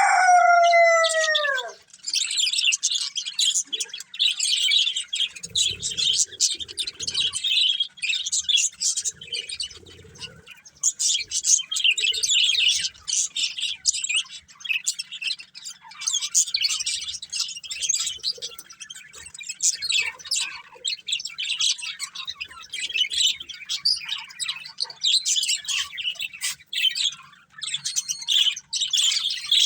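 Budgerigars chattering and warbling: a dense, unbroken stream of quick high chirps. A louder call with a falling pitch sounds in the first second or two.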